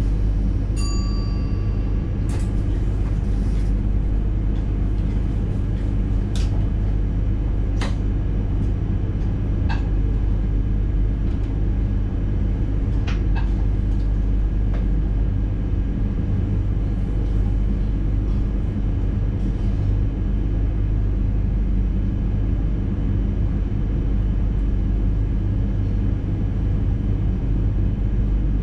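Electric NS intercity train running at speed, heard from inside the driver's cab: a steady low rumble with a faint steady whine above it. A short beep sounds about a second in, and a few sharp clicks and knocks come through at irregular intervals.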